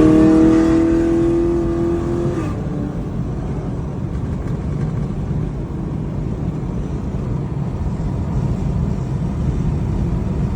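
Chevrolet Camaro SS's 6.2-litre V8 with its exhaust leaks repaired, held at high revs under acceleration, then backing off about two and a half seconds in to a steady lower drone of engine and road noise while driving.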